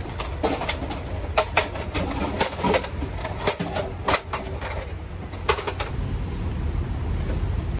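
Metal folding stools clattering as they are unfolded and set down: a run of sharp clacks and knocks over a steady low rumble.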